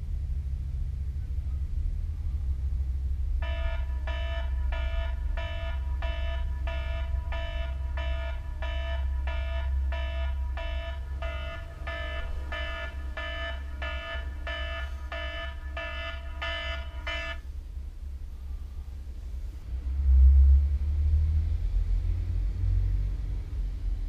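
Wake-up alarm beeping in a steady repeating pattern, somewhat under two beeps a second, for about fourteen seconds before it stops. A low steady rumble runs underneath, with a low thump about twenty seconds in.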